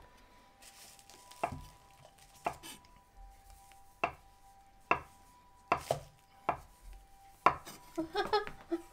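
Kitchen knife chopping through soft tapioca pearl dough and knocking on a wooden cutting board: about nine sharp knocks, roughly one a second and a little uneven, over a faint steady hum.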